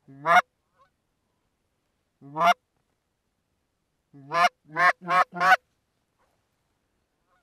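A hand-blown goose call sounding short honks with a break upward in pitch: a single honk, another a couple of seconds later, then a quick run of four, calling to a circling flock of geese to bring them back in.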